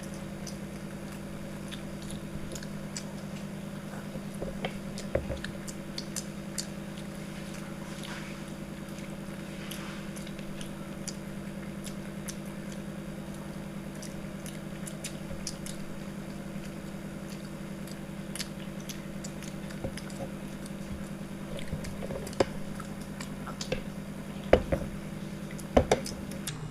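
Chewing and biting as people eat steamed chicken momos quickly, with scattered small clicks of mouth and dish sounds, several sharper ones in the last few seconds, over a steady low hum.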